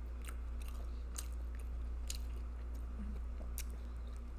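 Close-miked chewing with wet lip smacks and mouth clicks, irregular, two or three a second, over a steady low hum.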